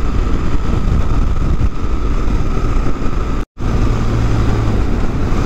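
Motorcycle ride at a steady cruise: wind rushing over the rider-mounted microphone with the BMW R1200GS's boxer-twin engine running underneath. The sound cuts out completely for a split second about three and a half seconds in.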